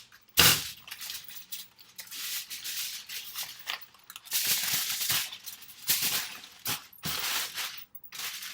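Aluminum foil being handled and crumpled, crinkling in irregular bursts, loudest in one sharp crackle about half a second in.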